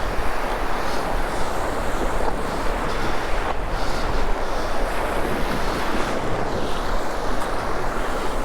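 Sea surf breaking and washing up a beach, with wind buffeting the microphone in a steady low rumble.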